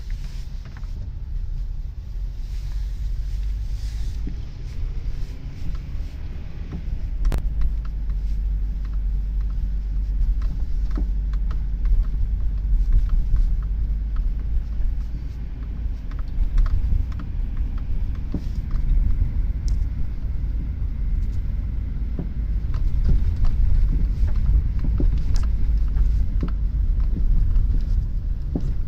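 Low road rumble inside a 1998 Honda CR-V's cabin on the move, with scattered light clicks from the interior. From about two-thirds of the way through come several deep knocks, which the owner places in the front driver's-side suspension despite newly replaced sway bar links, lower control arm and lower ball joint.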